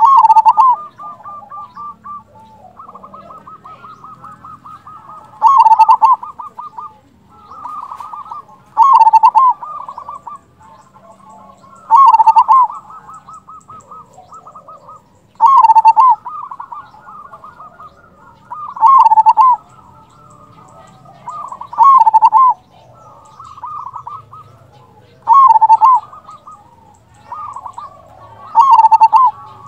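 Zebra dove (perkutut) cooing: a loud rolling coo repeated about every three seconds, nine times, with softer rapid stuttering notes between the calls.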